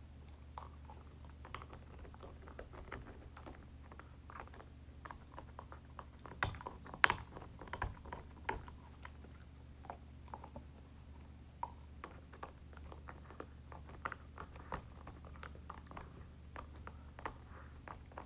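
Siberian husky gnawing a peanut-butter-smeared bone: irregular clicks and crunches of teeth on the bone, the sharpest about seven seconds in, over a faint steady low hum.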